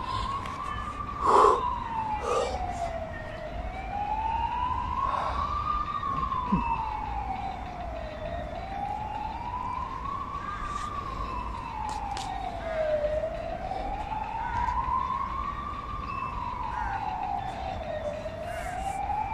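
Emergency vehicle siren wailing: one tone sliding slowly up and down, a full rise and fall about every five seconds, over a low background rumble. A short knock about a second and a half in.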